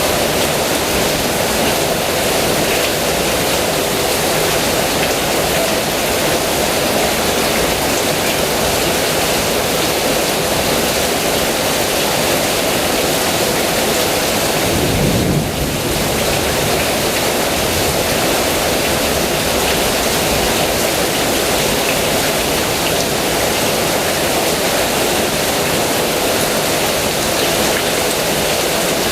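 Heavy rain pouring steadily, a dense even hiss, with a brief low swell about halfway through.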